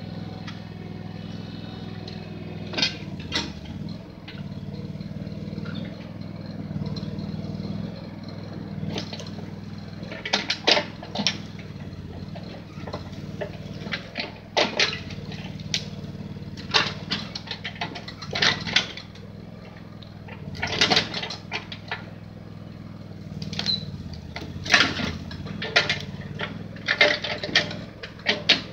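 Backhoe engine running steadily, with repeated sharp cracks and clatters of branches and brush as the bucket pushes and grabs at the brush pile, coming in clusters that are thickest in the second half.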